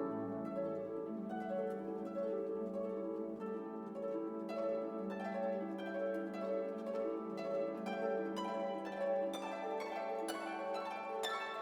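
Background orchestral music: plucked harp and pizzicato strings over sustained bowed string notes.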